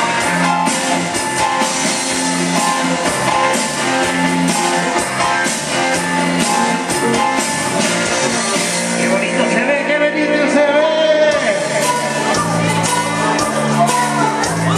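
Loud dance music with a steadily repeating bass line and a voice singing over it.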